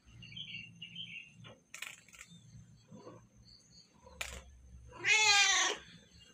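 A single animal call about five seconds in, lasting under a second and rising then falling in pitch, with a few faint clicks before it.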